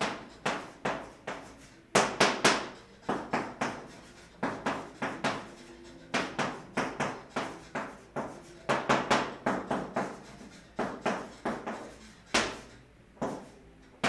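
Chalk writing on a chalkboard: a run of quick, sharp taps and short scrapes in irregular clusters, with brief pauses between words and symbols.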